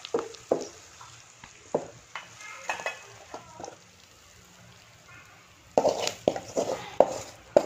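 Wooden spatula scraping and knocking against a pan and a steel bowl as a cooked fish fry is served out. The knocks are scattered at first, go quieter, then come thick and loud in a quick run near the end.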